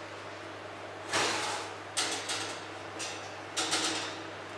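Oven rack sliding out of an open wall oven and a pie dish being handled on it: a few short scrapes and knocks, the loudest about a second in and a cluster near the end.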